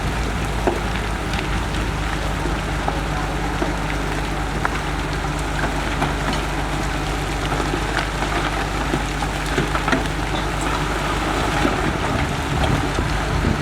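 Heavy construction machine's diesel engine running steadily, with a dense scatter of small clicks and rattles over it.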